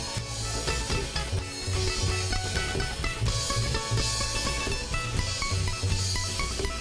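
Rock band playing an instrumental passage: guitar lines over bass and drum kit, with no singing.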